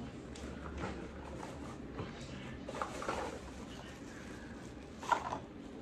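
Clear plastic bag with plastic ice pop moulds inside rustling and crinkling as it is handled, in irregular crackles that are busiest about three seconds in and again near the end.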